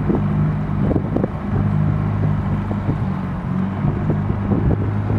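Boat's outboard motor running steadily, a low even hum.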